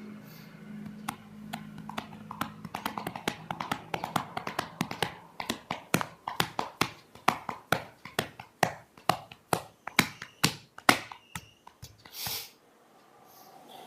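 A long run of sharp, irregular clicks and taps, growing denser and louder after about five seconds, over a low steady hum that fades out about three seconds in.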